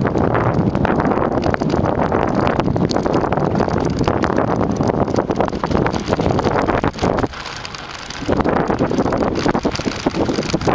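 Wind buffeting the microphone of a bike-mounted action camera riding fast over a dirt track, with the rattle and knocks of the bumpy ground. It eases off briefly about seven seconds in.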